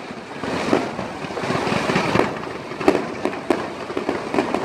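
Fireworks going off in a dense run of bangs and crackling, with several louder reports scattered through it.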